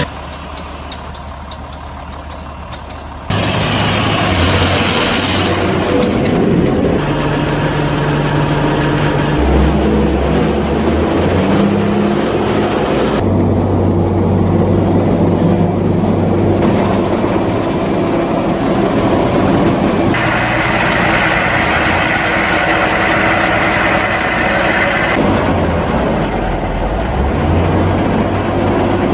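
Diesel engines of heavy farm machinery running: tractors and a forage harvester at work. The engine sound changes abruptly every few seconds as one clip gives way to the next.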